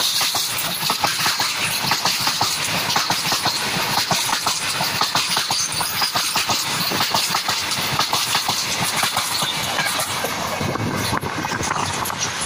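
Covered goods wagons of a freight train rolling past close by, with steady rolling noise and a rapid stream of wheel clicks and knocks over the rail joints. The sound changes abruptly about eleven seconds in.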